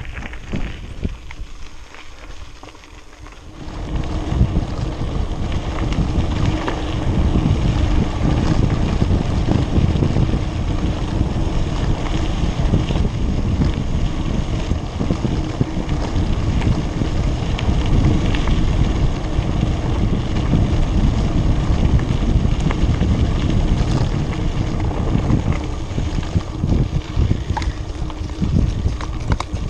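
Wind buffeting the camera microphone on a mountain bike riding fast along a dirt road, mixed with the rumble of the tyres on the dirt. It gets much louder about four seconds in, after a quieter start.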